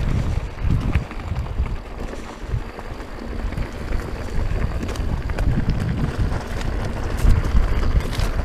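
Wind buffeting the microphone, a heavy uneven rumble, with scattered small clicks and rattles from a mountain bike rolling over a rocky trail.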